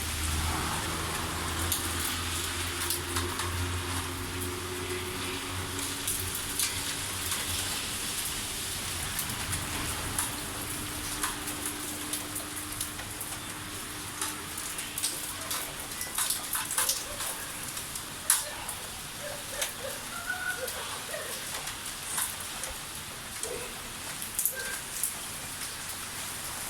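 Typhoon rain falling steadily, with many sharp drips and taps of water on surfaces. A low drone underneath fades out about ten seconds in.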